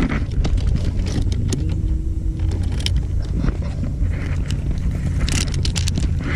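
Wind buffeting the microphone as a low, uneven rumble, with scattered sharp clicks and light rattles of fishing tackle and reel handling.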